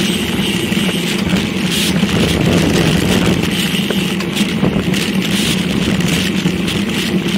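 Wind rushing and buffeting over a bicycle-mounted action camera's microphone, with the steady hum of tyres on pavement, while riding at speed.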